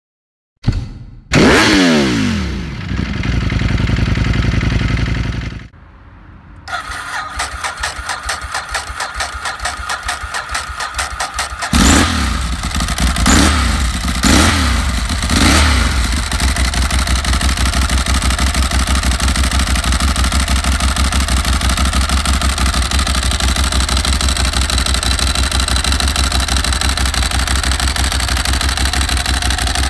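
Ducati 1098S's L-twin engine through a Termignoni exhaust, starting and running up, then idling with an even, pulsing beat. Four sharp throttle blips come about twelve to fifteen seconds in, before it settles back to a steady idle.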